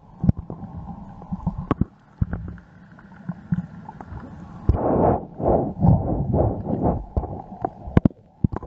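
Underwater sound heard through a camera housing: scattered sharp clicks and knocks, and a louder stretch of pulsing water noise for about three seconds starting just before five seconds in.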